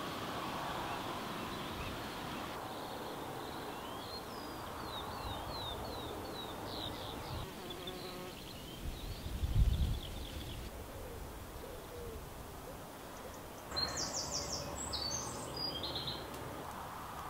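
Woodland birds singing in short runs of quick high notes, with a louder burst of song near the end, over a steady rush of wind through the trees. A brief low rumble comes about halfway through.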